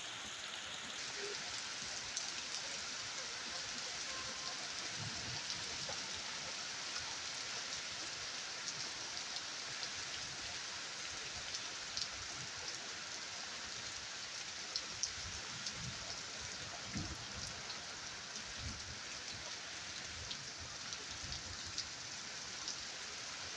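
Steady rain falling, an even hiss dotted with the ticks of single drops striking nearby, with a few soft low thumps in the second half.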